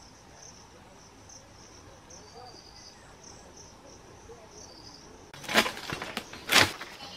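Insects chirping in short, evenly repeated pulses; about five seconds in, two loud hacking strokes as a sickle blade cuts into the fibrous stalk of an oil palm fruit bunch.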